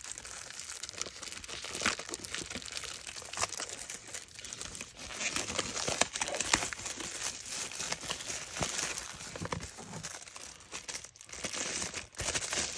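Cellophane shrink-wrap being torn and peeled off a cardboard box by hand: continuous crinkling and crackling, dotted with many sharp little snaps.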